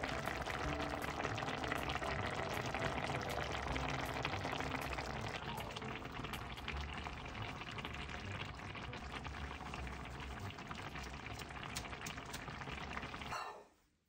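A pot of tomato soup with Chinese cabbage and tofu simmering: steady bubbling with many small pops, cutting off abruptly shortly before the end.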